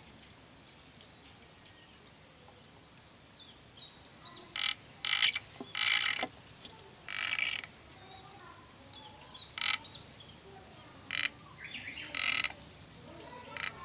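Sado frog (Glandirana susurra) calling: a run of about eight short notes at uneven intervals, starting roughly three and a half seconds in.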